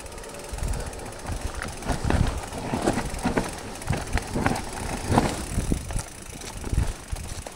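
Specialized Levo SL electric mountain bike rolling over a wet, rooty dirt trail: irregular knocks, thuds and rattles from the frame, chain and suspension as the wheels hit bumps, over a steady rush of tyre noise.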